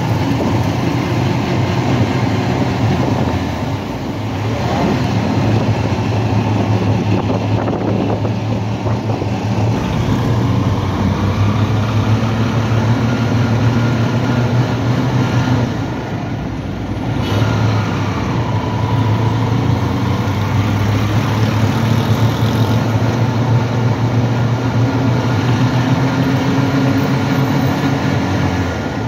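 Engine of a moving vehicle running steadily through busy street traffic, with road noise around it. The sound eases off briefly twice, about four and sixteen seconds in.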